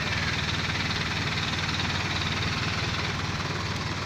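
A boom truck's engine idling steadily, with a rapid, even low pulsing.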